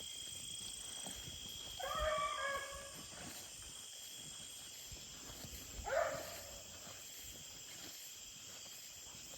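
Coon hound barking on a track, somewhat distant: a drawn-out bark about two seconds in and a shorter one about six seconds in, over a faint steady high-pitched tone.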